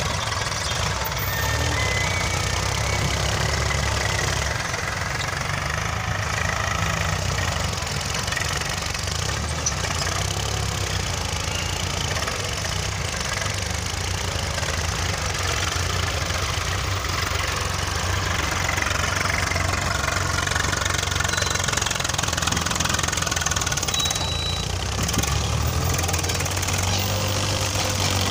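Diesel farm tractor engine running steadily under heavy load, dragging a land leveller through loose sand hard enough to lift the tractor's front wheels.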